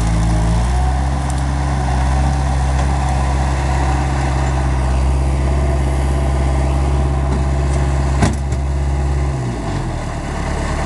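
Bobcat 753 skid-steer loader's diesel engine running steadily under throttle while it works brush with its bucket. A single sharp knock comes about eight seconds in, and the engine speed drops near the end.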